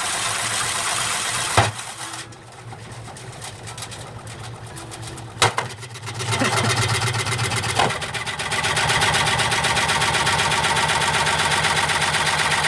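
Washing machine running with junk loaded in its drum: a steady motor hum with a fast rhythmic rattle. There are sharp clicks about one and a half and five and a half seconds in, and from about six seconds the machine builds up and runs louder.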